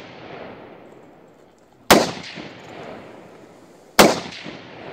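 Two shots from a scoped AR-style rifle, about two seconds apart, each a sharp crack followed by a long echoing tail. The tail of an earlier shot is still fading at the start.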